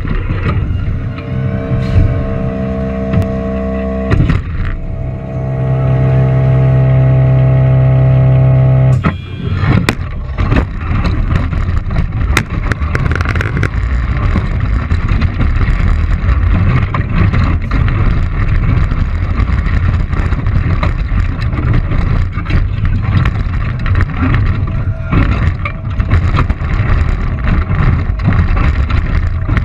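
A competition robot heard from a camera mounted on it: a steady pitched hum in two stretches over the first nine seconds, then continuous rattling and clattering with many sharp knocks as the robot drives and works for the rest.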